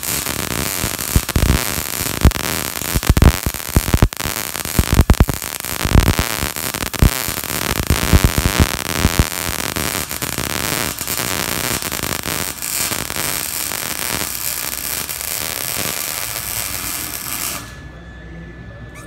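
An electric welding arc laying a bead, crackling with many irregular sharp pops in the first half and then a steadier sizzle, until the arc is cut off abruptly about 17 seconds in.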